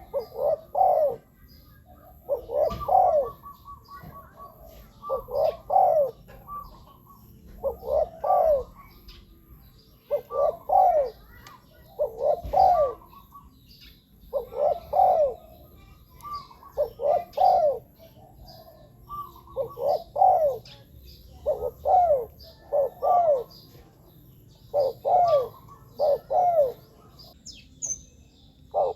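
A spotted dove cooing: a steady series of phrases of two or three short falling coo notes, repeating every two to three seconds. It is the call of a decoy dove used to lure wild spotted doves, with faint chirps of other small birds behind it.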